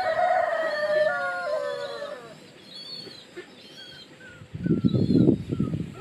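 A rooster crows once: one long call lasting about two seconds that breaks partway and falls in pitch at the end. Faint high bird chirps follow, then a short burst of lower, rougher sounds near the end.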